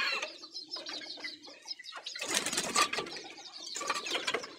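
Young chickens in a pen calling with many short, high chirps and peeps, with a noisy rustling burst about halfway through.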